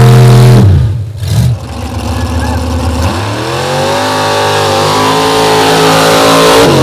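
Lifted mud-bog pickup trucks' engines at full throttle. A loud steady high-revving engine note breaks off abruptly under a second in, then another truck's engine winds up with rising pitch about three seconds in and holds at high revs.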